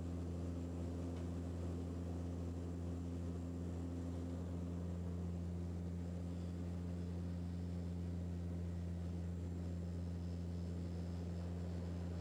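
Steady low drone of a turboprop aircraft's engines heard inside the passenger cabin, with several steady hum tones under a faint hiss. The propeller beside the window has stopped, so the drone is the aircraft flying on its remaining engine after an engine failure.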